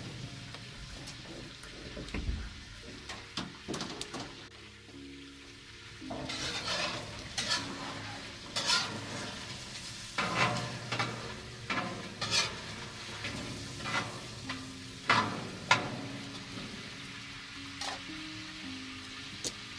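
A utensil stirring and scraping in a large metal cooking pot over a wood fire, with irregular knocks against the metal about once a second, over the sizzle of food frying in the pot.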